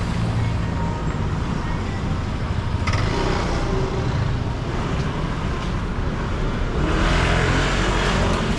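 City street traffic: a steady low rumble of running vehicles, with a louder wash of tyre and engine noise as a car passes close near the end.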